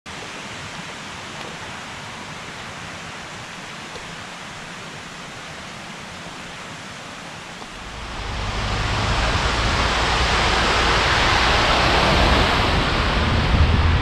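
Steady rushing water noise with no distinct drops or splashes. About eight seconds in it grows much louder and a deep rumble joins it.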